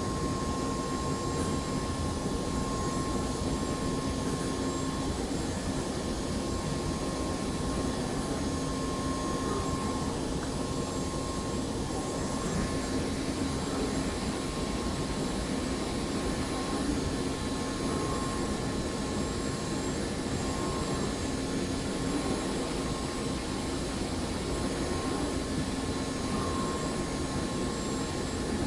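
Hermle C12 five-axis CNC machining centre milling: steady machine noise with a constant hum and several steady higher whines, unchanging throughout.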